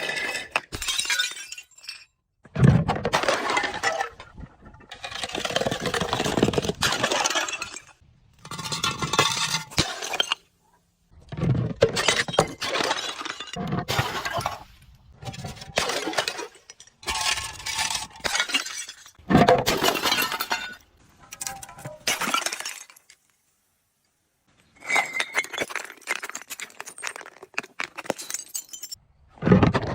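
Glass bottles breaking and being crushed: a series of separate bursts of crunching, cracking and clinking glass, each a few seconds long, with short silent gaps between them.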